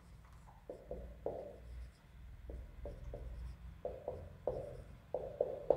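Felt-tip marker squeaking on a whiteboard as a word is written: a run of short strokes in small clusters, starting about a second in.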